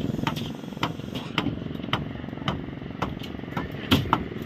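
An engine running steadily, with sharp short knocks about twice a second.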